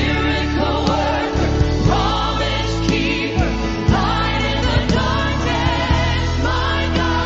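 Live gospel worship music: a woman sings lead into a microphone with a wavering vibrato over a full band with steady bass and a regular beat.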